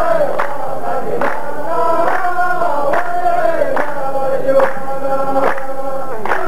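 A chorus of men chanting a line of qalta poetry in unison, with long sliding held notes. Steady hand claps keep time, a little faster than once a second.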